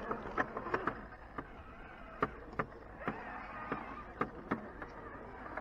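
Axial SCX10.2 '69 Blazer RC rock crawler climbing a steep rock chute, its electric motor and geared drivetrain whirring steadily, with a dozen or so irregular sharp clicks and ticks.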